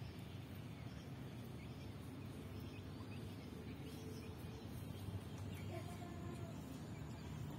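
Quiet outdoor ambience: a low steady background noise with a few faint bird calls, one a little under six seconds in.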